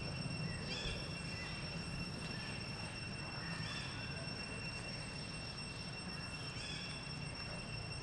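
Outdoor forest ambience: a steady high insect drone over a low rumble, with four or five short, high animal calls scattered through it.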